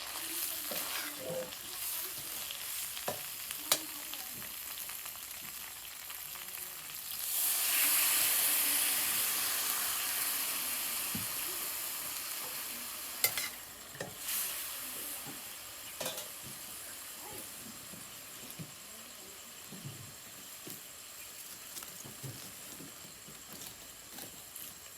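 Food sizzling and frying in hot oil in a cooking pan. The sizzle jumps sharply about seven seconds in and then slowly dies down, with a few sharp knocks in between.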